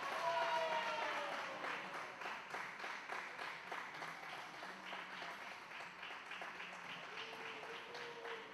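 Applause and scattered hand clapping echoing in a sports hall, with a voice calling out a falling cry in the first second or so.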